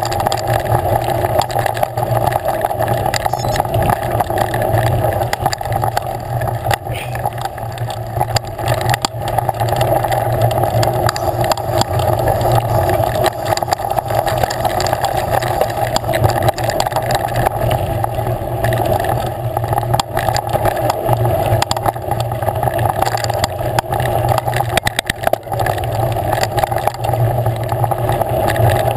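Steady rushing and rattling noise of a mountain bike riding along a dirt singletrack, picked up by a camera mounted on the bike.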